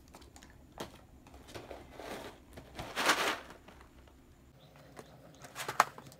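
Grocery packaging being handled: a plastic drink pouch and a cardboard cereal box rustle as they are moved, loudest about three seconds in, with a light knock near the end as the box is set down on a tray table.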